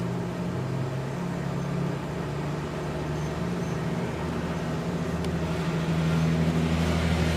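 Road traffic on a snowy street: a steady low engine hum, with a passing vehicle growing louder near the end.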